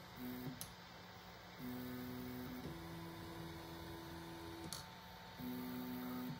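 Stepper motors of a fast CoreXY 3D printer whining in steady pitched tones that switch on, off and change pitch every second or two as the print head darts across the bed, over a constant hum. Two sharp clicks, about half a second in and near the end.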